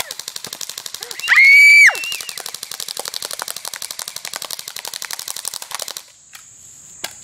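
Airsoft gun firing a long full-auto burst, a rapid even stream of clicking shots that stops suddenly about six seconds in. About a second in, a loud high-pitched yell rises over the firing.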